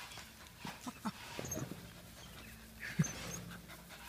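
A dog making short, repeated vocal sounds as it snaps and bites at a wheelbarrow's wheel, with one sharp, louder sound about three seconds in.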